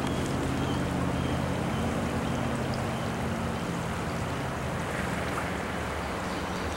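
Steady rushing noise of a flowing creek, even and unbroken.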